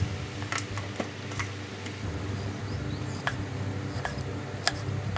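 Kitchen knife cutting limes in half on a thick wooden chopping block: light, irregular knocks as the blade goes through and meets the wood, over a low steady hum.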